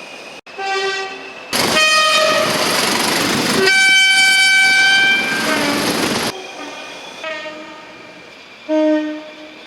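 Train horns sounding in a run of short cuts. After a brief blast comes a loud two-note horn: a lower note held about two seconds, then a higher note, over the rushing noise of the moving train. Shorter, fainter horn blasts follow, the last one near the end.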